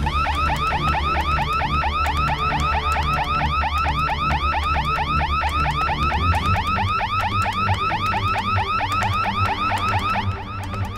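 Electronic alarm siren wailing in a fast, even warble of rising-and-falling chirps, several a second. It starts abruptly and drops in level near the end, over a steady low rumble.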